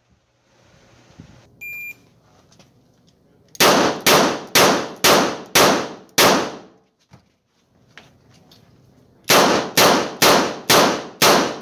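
.38 Special six-shot snub-nosed revolver fired at an indoor range: two strings of six shots, about two a second, with a pause of about three seconds between them, each shot ringing briefly off the range walls. Before the first string there is a short electronic beep.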